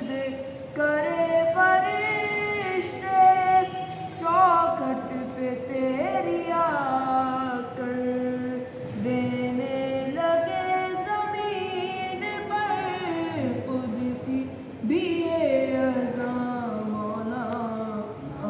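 A child's high voice singing devotional verse without instruments, holding long notes that slide from pitch to pitch.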